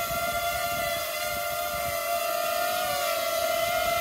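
FPV quadcopter with a GoPro on top hovering, its propellers giving a steady whine with stacked overtones that wavers slightly in pitch, dipping about a second in and again near three seconds.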